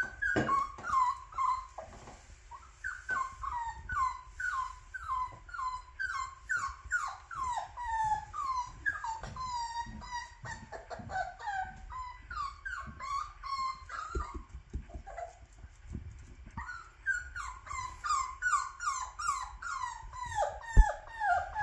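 Dachshund puppy whining in short, high, falling cries, about two a second, breaking off for a few seconds past the middle and then starting again.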